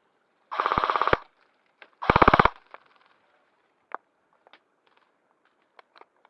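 Airsoft electric rifle, an Amoeba AM-016, firing two short full-auto bursts about a second apart, each a rapid even rattle of roughly 18 to 20 shots a second. A few faint sharp ticks follow.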